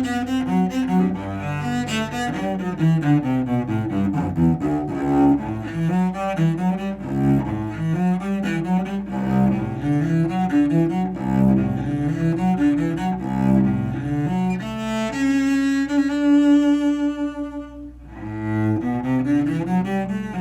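Cello music: a bowed melody moving over low bass notes, with a long held note with vibrato about three quarters of the way through.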